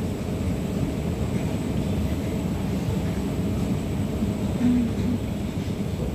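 Steady low rumble of underground train-station machinery while riding a down escalator, with a faint high steady whine above it.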